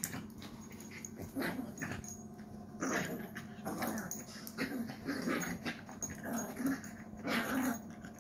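Small dog making short, rough play noises, about one burst a second, while tugging and shaking a plush teddy toy in her mouth.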